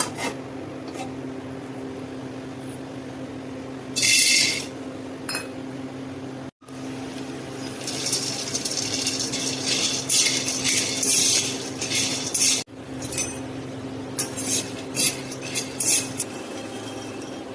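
Kitchen utensils clinking and scraping against a pan in several short takes, with a stretch of steady scraping in the middle and a run of quick clinks near the end, over a steady low hum.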